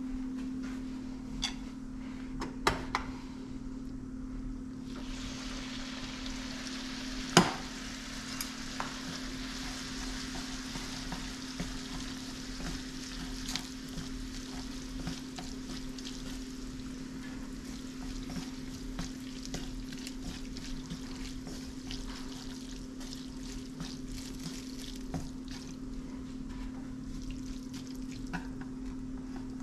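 Food sizzling in hot oil in a frying pan, with stirring. The sizzle comes up about five seconds in and then holds steady, with a sharp knock of a utensil against the pan a couple of seconds later and a steady low hum underneath.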